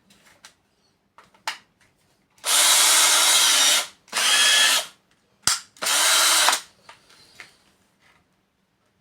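Power tool fitted with a milling cutter, run in three short bursts to widen a drilled hole: one of just over a second and two of under a second each. Faint handling clicks come before and after.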